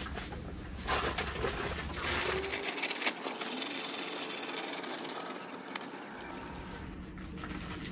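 Rustling and crinkling of the polytunnel's plastic-film door curtain as it is pushed aside and rolled up, with sharp crackles near the start and around the first few seconds.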